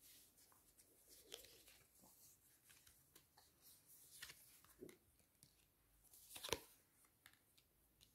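Near silence with faint rustling and soft clicks of cards being handled and turned over, with one sharper snap of a card late on.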